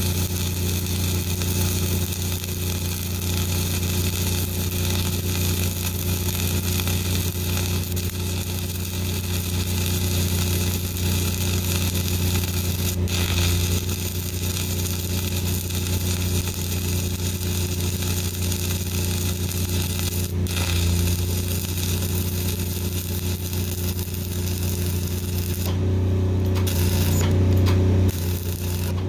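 Self-shielded flux-core arc welding with Lincoln Innershield NR-305 5/64" wire at about 28 volts: a steady crackling, sizzling arc, over a constant low engine hum from the diesel engine-drive welder. Near the end the arc cuts off and the hum carries on.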